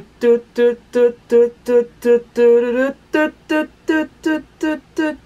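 A man's voice singing a piano riff without words: a quick run of short repeated notes, about four a second, with one longer held note just past the middle.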